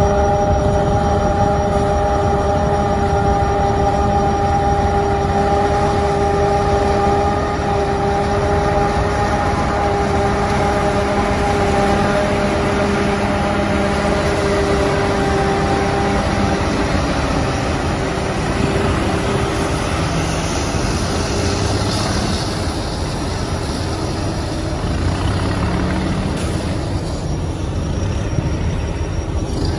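Self-propelled forage harvester running while chopping corn, a steady mechanical drone under a high whine. The whine fades about halfway through while the drone carries on.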